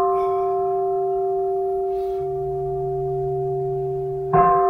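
Soundtrack music: a struck bell tone rings on over a low drone, then is struck again near the end.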